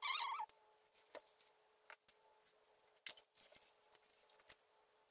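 Faint handling of loose lengths of electrical wire: a brief crackle at the start, then a few light scattered clicks, over a faint steady hum.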